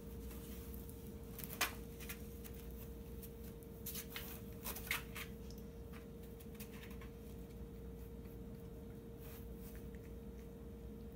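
Faint scattered scratches and rustles of a cat shifting about inside a cardboard box, its paws and body brushing the cardboard, over a steady hum.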